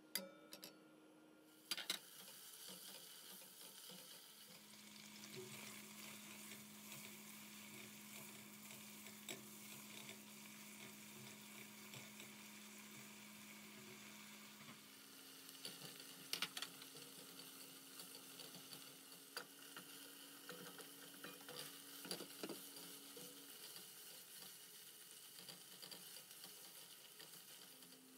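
Diced meat frying in hot oil in a granite-coated pot: a steady sizzle that starts about two seconds in after a couple of sharp knocks as it goes in, with scattered clicks and scrapes of a silicone spatula stirring it.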